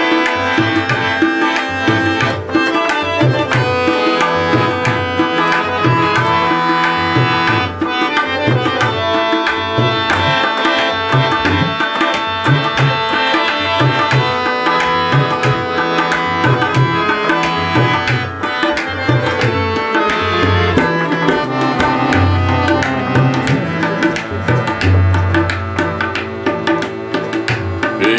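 Harmonium playing a melody in held reed tones, accompanied by tabla in a steady rhythm, with the deep bass strokes of the bayan standing out. For a few seconds past the middle the bass drum holds a longer ringing low note.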